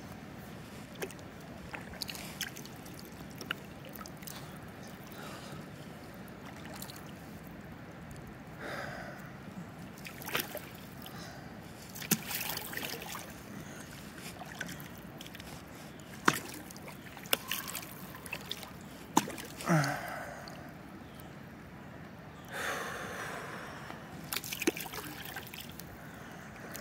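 Kayak paddling on calm river water: paddle strokes swishing and water trickling and dripping, with scattered sharp clicks and knocks.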